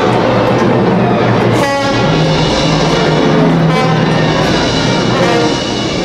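Instrumental background music, loud and full, with long held notes.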